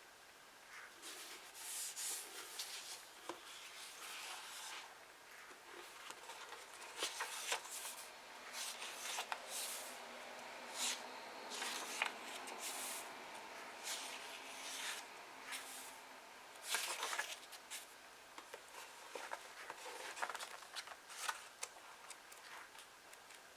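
Pages of old books being turned one after another, an uneven run of papery swishes and crisp rustles.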